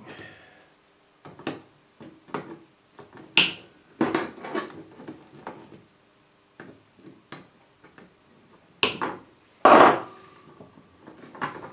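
Irregular clicks and knocks from hands working wires and a fuse holder loose inside a cassette deck's chassis. The loudest knocks come a few seconds in and again near the end.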